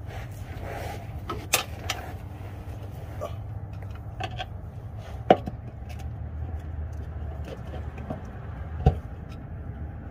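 Scattered metal taps and knocks of a flat-blade screwdriver prying at the oil pan of a GM 5.3 V8 to work it loose. The loudest knock comes about five seconds in and another near the end, over a steady low hum.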